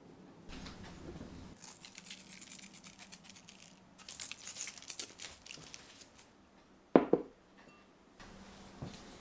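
A sprig of fresh thyme rustling as it is laid on halved courgettes in a stainless steel pan, then sea salt flakes crumbled between fingers and falling as a fine crackle. Just before seven seconds in, a sharp knock as a ceramic bowl is set down on a wooden table.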